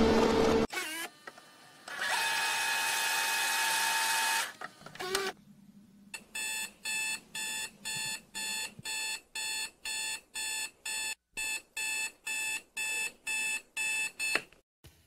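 Background music cuts off just under a second in, and a steady hiss runs for a couple of seconds. Then an electronic alarm beeps, about two beeps a second for some eight seconds, and stops abruptly near the end.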